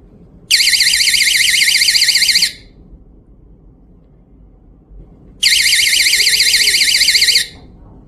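Small battery-powered magnetic door-entry alarm sounding its piercing 90 dB siren twice. Each time it gives a fast-warbling high-pitched shriek lasting about two seconds, with a short gap between. The alarm goes off when the door magnet is separated from the alarm body, meaning the door has been opened.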